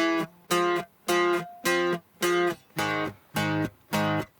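Recorded music playing: short strummed guitar chords, about two a second, each cut off sharply, with a lower bass part underneath.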